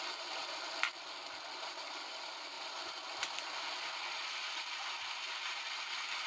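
Broadway Limited HO-scale water tower's sound unit playing a steady rush of water, as if filling a locomotive tender through the lowered spout, with a sharp click about a second in and a fainter one about three seconds in.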